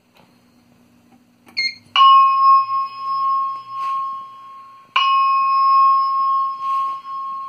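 Two chime strikes from the Simplex 4100U voice evacuation system's wall speakers, each ringing and slowly fading for about three seconds, preceded by a short high beep. This is the alert chime that comes before a recorded paging message.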